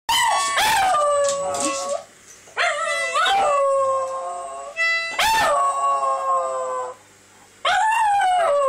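A dog howling along with a child blowing a toy trumpet, the two sounding together in four long stretches with short gaps between. Each stretch opens with a rising-then-falling sweep and then settles into a held, slowly sinking note.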